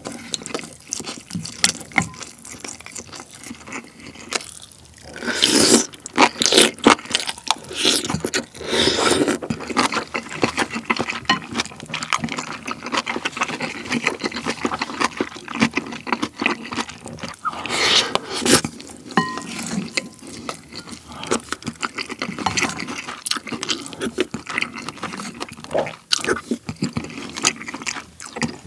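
Close-miked eating sounds of kimchi stew with pork belly and rice: a spoon scraping and scooping in a ceramic bowl of stew, and wet chewing with many small clicks and smacks.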